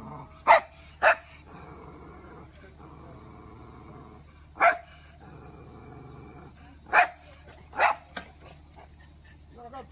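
A terrier barking in sharp single barks, about six spaced irregularly a second to a few seconds apart, over a steady high-pitched hiss.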